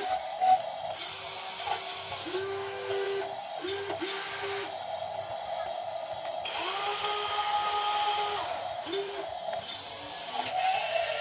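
Small electric motors and gearboxes of metal RC construction models whining in short runs, each run starting with a quick rise in pitch and stopping again, with bursts of higher gear hiss.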